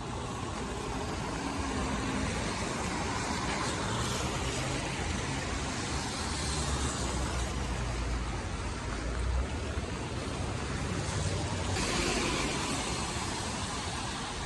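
City traffic on rain-wet streets: a steady hiss of tyres and rain over a low engine rumble, which eases about two-thirds of the way through, with a vehicle swishing past near the end.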